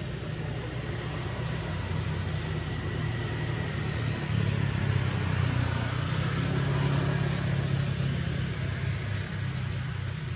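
A motor vehicle's engine running, a steady low hum that grows louder about four seconds in and eases off near the end.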